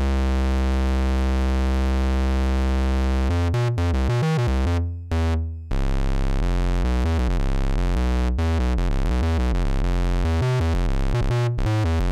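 Raw square-wave output of oscillator B on a Make Noise DPO analog oscillator, played from a keyboard an octave lower: a deep, hollow, buzzy tone at a steady level. One low note is held for about three seconds, then a run of changing notes follows, with a few brief breaks between notes.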